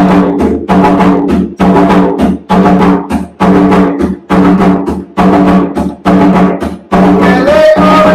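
Bomba barrel drum played with bare hands in the yubá rhythm, a 6/8 pattern of evenly repeating, ringing strokes.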